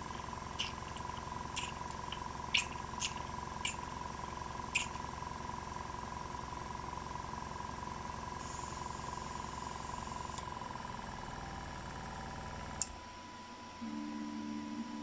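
Small piston airbrush compressor running with a steady, fast-pulsing hum, then cutting out with a click about 13 seconds in. Several light clicks of a glass pipette against a glass jar in the first five seconds.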